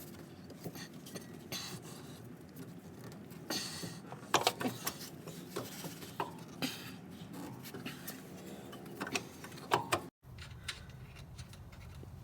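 Scattered metallic clicks and clinks of hand tools and hardware being handled while a new rear shock absorber is bolted in, over a low steady background.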